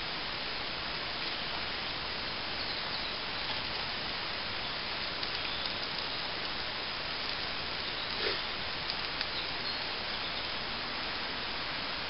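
Eggs frying in a pan over a burning twig stove: a steady hiss with a few faint small crackles, one slightly louder about eight seconds in.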